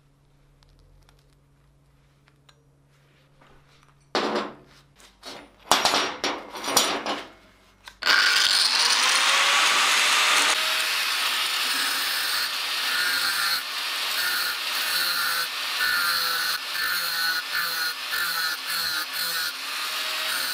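A few loud scrapes and knocks of steel parts being handled. Then, about eight seconds in, an angle grinder starts grinding a steel grappling-hook part, a steady high whine with grinding noise that rises and falls in quick strokes as the disc is worked across the metal.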